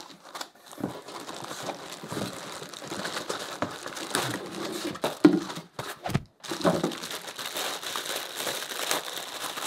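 Plastic packaging and foam packing crinkling and rustling as the parts of a drum-module clamp are handled out of their box. There are a couple of sharper knocks about halfway through.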